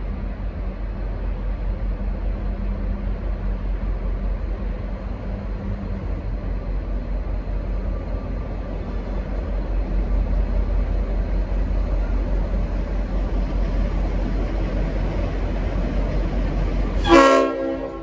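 V/Line N class diesel locomotive drawing nearer with a steady low rumble that grows louder about halfway through. Near the end it gives one short, loud blast on its Leslie RS5T five-chime horn.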